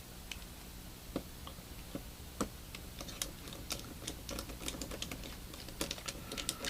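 Faint, irregular small clicks and ticks from driving the last screw and handling a smartphone's parts with a small screwdriver. They are sparse at first and come faster in the second half.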